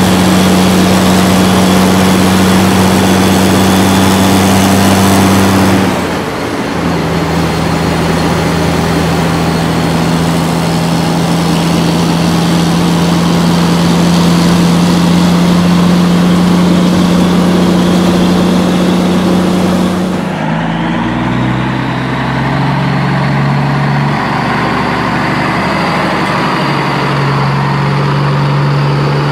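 Heavy truck engine sound effect, a steady low engine drone added to the soundtrack rather than made by the unpowered plastic toy trucks. It jumps to a different pitch about six seconds in and again around twenty seconds in, then steps between a few pitches like an engine changing speed.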